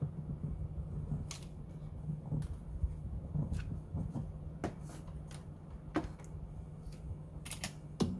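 Scattered clicks and light knocks of a plastic radio-cassette case with its speakers, and a circuit board, being handled and set down, over a steady low hum.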